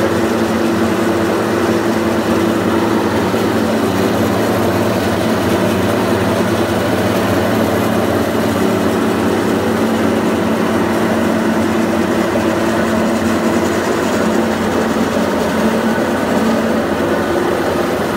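1997 Ficep 1221B CNC drilling line running, its vertical spindle drilling a hole through a steel I-beam flange: a steady machine drone with a low, even hum.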